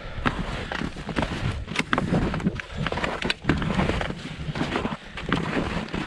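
Touring skis with climbing skins shuffling uphill through snow, with irregular crunches and clicks of ski poles planting in the snow.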